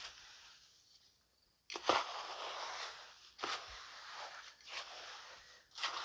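A hand garden tool raking and stirring moist crushed lump charcoal in a plastic tub: a series of gritty, crunching scrapes, with a short lull about a second in. The charcoal is being turned to keep it from going anaerobic while it is activated into biochar.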